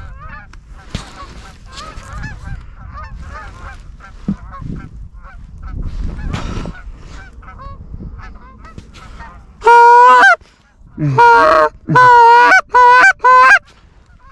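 Canada geese honking: a flock calls faintly over low wind rumble on the microphone, then about ten seconds in come six or seven very loud, close honks in quick succession.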